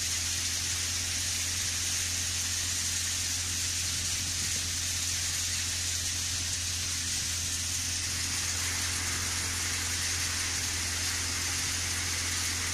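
Tractor-driven grain threshing machine running steadily: a constant low drone with a steady hiss over it.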